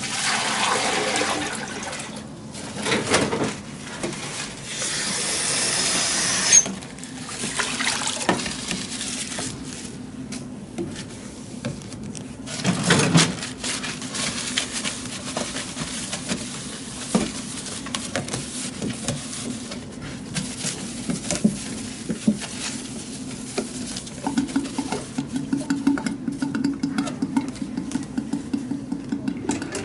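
Water poured from a plastic wash basin and running into a sink for the first several seconds, cutting off sharply about six and a half seconds in. After that come the rustle of paper towels and small knocks as the plastic basin is dried and handled.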